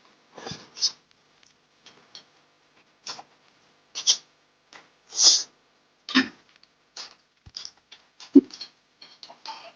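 Close-up eating sounds: irregular wet mouth noises of chewing, lip smacks and slurps from someone eating spicy boneless pig's feet and enoki mushrooms, with a few sniffs.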